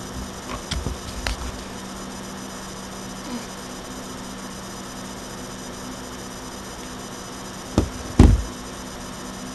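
Steady hiss and low hum of a webcam microphone, with a few light knocks about a second in and two thumps near the end, the second one the loudest, as things are handled on the desk in front of it.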